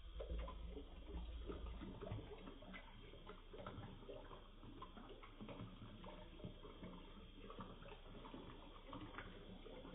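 Faint water splashing and trickling at a kitchen sink, a dense scatter of small ticks and drips. A low rumble sounds in the first two seconds.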